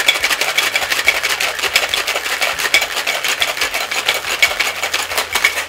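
Ice cubes rattling inside a Boston cocktail shaker as it is shaken hard to chill and mix a cocktail: a fast, steady clatter of ice against the tin that stops abruptly near the end.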